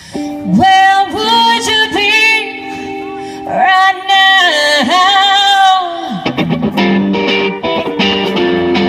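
Live band playing soul-rock: a female lead voice sings two long phrases with wavering held notes over electric guitar and drums. About six seconds in the voice stops and the band carries on with rhythmic guitar chords.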